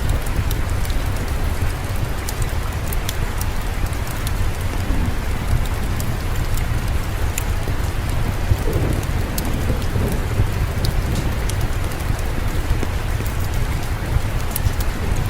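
Steady rain falling, with a constant deep rumble underneath and many scattered sharp ticks. Around the middle, a soft swell of lower, murmuring noise.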